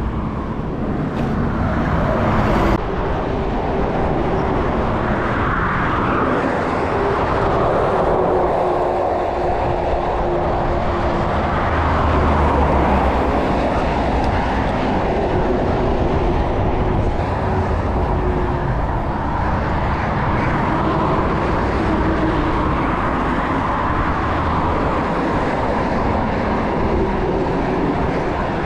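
Steady highway traffic noise from cars and heavy trucks going past, mixed with wind rush on the microphone of a moving bicycle; the rumble swells slightly about twelve seconds in.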